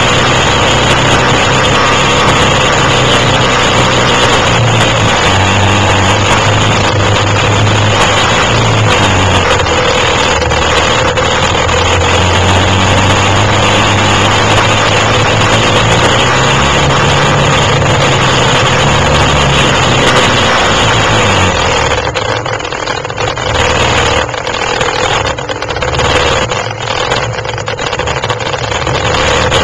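Quad (ATV) engine running hard, its low note stepping up and down as the throttle changes. About 22 seconds in, the engine eases off and the sound becomes quieter and uneven.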